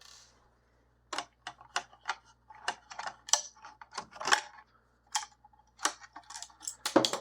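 Screws at the corners of a small LCD screen being taken out with a small screwdriver and handled: irregular light clicks and taps of metal and plastic, a louder knock near the end.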